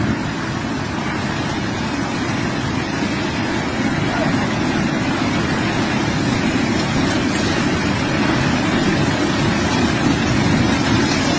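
A heavy machine's engine running steadily with a low rumble, with no knocks or clanks.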